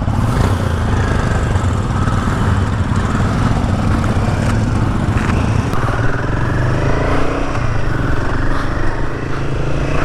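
Royal Enfield Himalayan 450's single-cylinder engine running on the move, with wind rushing over the helmet microphone. A steady, loud rumble.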